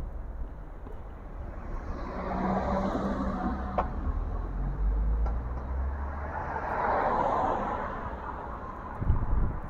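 Two vehicles passing on the road one after the other, each a swell of tyre and engine noise that rises and fades over a low rumble. A couple of low thumps near the end.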